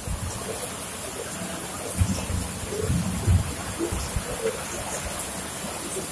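A pen writing on paper, with soft low bumps from the hand and paper over a steady hiss.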